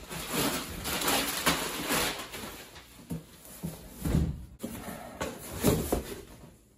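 Gift wrapping paper torn and crumpled off a cardboard box, crackling and rustling, then the box's cardboard flaps pulled open, with a couple of dull thumps from the box being handled about four and six seconds in.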